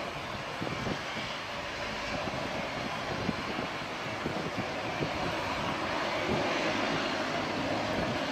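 Twin Pratt & Whitney Canada PW123 turboprop engines of a Bombardier Dash 8-300 running at taxi power, a steady propeller and turbine drone that grows slightly louder as the aircraft comes closer.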